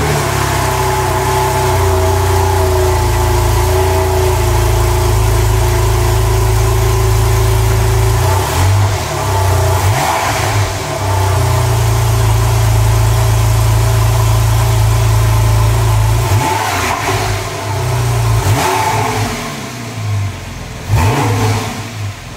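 Porsche 911 Carrera 4S (991.1) 3.8-litre naturally aspirated flat-six on a cold start, running at a steady fast idle through a newly fitted Porsche Sports Exhaust rear silencer. In the second half the engine is revved in a few short blips.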